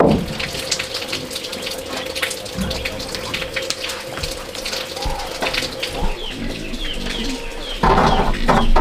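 Birds chirping over running water, with a steady tone that stops near the end, when a louder sound sets in.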